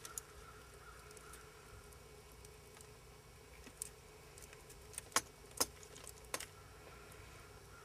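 A handful of sharp, light clicks and rattles from car-stereo wiring harness plugs and wires being handled by hand, clustered from about four to six and a half seconds in, over a faint steady hum.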